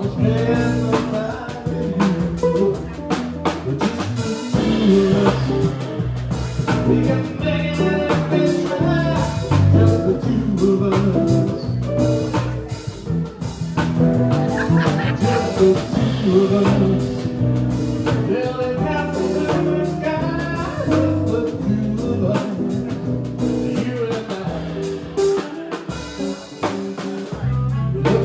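Live jazz band playing: electric archtop guitar, keyboard, bass and drum kit played with sticks.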